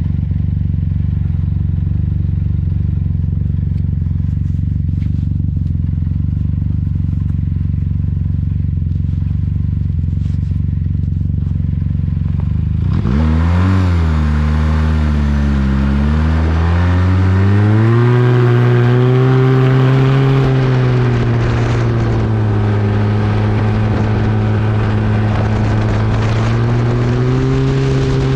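Arctic Cat 1100 Turbo snowmobile, a turbocharged four-stroke triple with an MBRP aftermarket exhaust, running steadily at low revs. About halfway through the throttle opens: the engine note jumps up, dips and climbs a couple of times, then holds at a higher steady pitch at speed, with a rushing hiss of wind and track.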